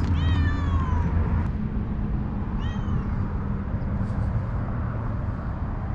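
Stray cats meowing: one long meow falling in pitch in the first second, a shorter one about two and a half seconds in, and a faint one later, over a steady low rumble.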